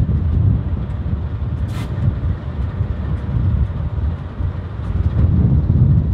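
Low, steady rumble of a diesel train locomotive idling at the platform, with a short hiss of released air just under two seconds in.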